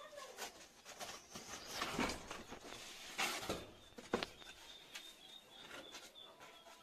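Scraping and knocking noises of hands and utensils at work, loudest around two and three seconds in, while a bird chirps in quick repeated notes in the background.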